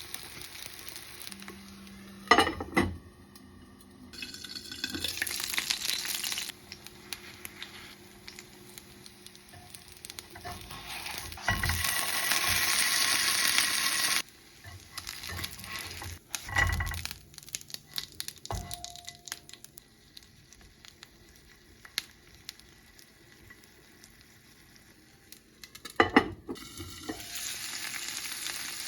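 Food sizzling on a hot iron griddle. The sizzling starts and stops abruptly several times and is loudest about twelve to fourteen seconds in, with sharp knocks and clicks in between.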